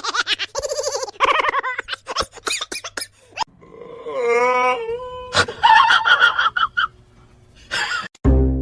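Wailing, moaning cries in several bouts, with a wavering pitch, and a low thump near the end.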